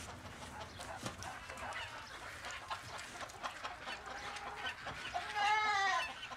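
Chickens clucking in short scattered calls. About five seconds in comes one louder, drawn-out call that rises and then falls in pitch.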